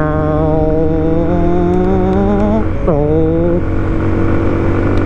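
Motorcycle engine accelerating, its pitch rising steadily for about two and a half seconds. A quick upshift drops the pitch about three seconds in, then the engine pulls on in the next gear and settles to a steady run.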